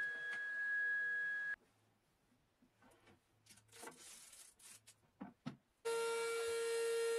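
A steady machine whine cuts off about a second and a half in, followed by a few light knocks and scrapes as a board is handled. Near the end a table-mounted router starts running with a steady high whine, beginning abruptly.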